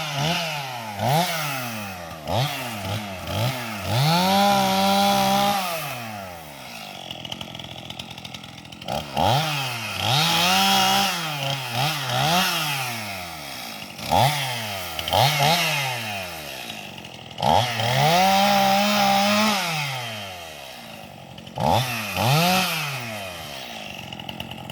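Two-stroke chainsaw revved over and over: quick blips where the pitch climbs and falls back, and three longer bursts held at full throttle for a second or two before dropping back to idle.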